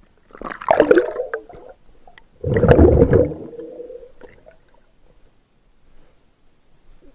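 Two gurgling breaths through a snorkel, each lasting about a second and a half, the second one heavier and lower.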